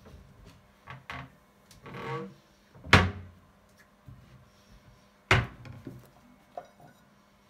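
Household handling sounds: scattered light knocks and clicks, a brief swish, and two sharp thuds, the loudest about three seconds in and another about five and a half seconds in.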